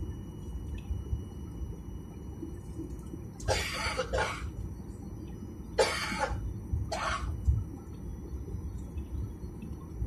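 Steady low rumble inside a jet airliner's cabin while it taxis, with a person coughing in two bouts, about three and a half seconds in and again around six to seven seconds.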